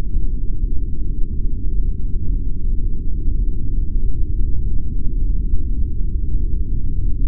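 A steady, deep, noisy rumble with nothing higher in it, a designed soundtrack bed under the slowed-down dance film.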